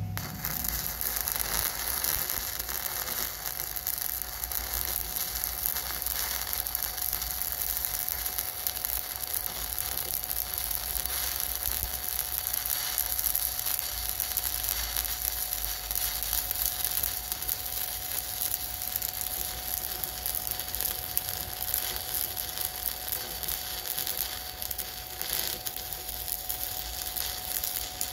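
Stick welding arc from a 7018 electrode, a steady crackling sizzle as a bead is run along a steel joint.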